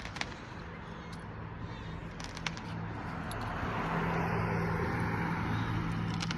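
An engine running with a steady low hum, growing louder about halfway through as a rushing noise builds over it.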